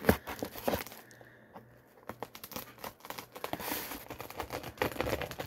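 A mail package being opened by hand, its wrapping tearing and crinkling. There is a sharp rip right at the start, a quieter pause about a second in, then a run of crinkling and rustling.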